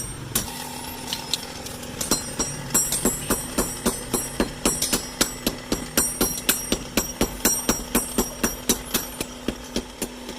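Hammer blows on steel over an anvil while an axe is forged, sharp ringing metallic strikes at about three to four a second, with a steady hum underneath.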